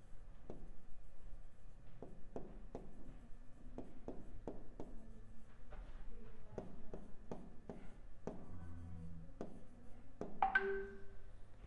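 Pen tapping and sliding on an interactive smartboard's screen as words are handwritten: a string of sharp, irregular clicks, roughly two a second. Near the end there is a short pitched sound.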